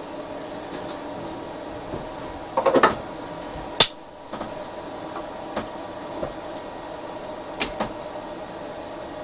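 Steady hum of the powered-on Geeetech A20 3D printer's cooling fans. Over it come a short rattle of handling clicks, one sharp click a little later, and two more clicks near the end, as cables are worked with zip ties.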